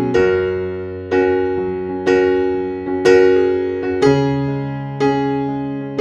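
Background music: piano chords struck about once a second, each ringing and fading away before the next.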